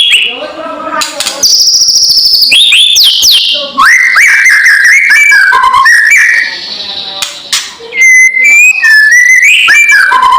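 White-rumped shama calling loudly: quick whistled notes that glide up and down, broken by a fast buzzy trill and harsh rattling chatter, the 'kretekan' call used to provoke other shamas.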